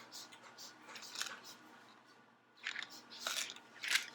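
Short, scattered rustles and clicks of small jewelry packaging being handled and opened by hand, in a few quiet clusters.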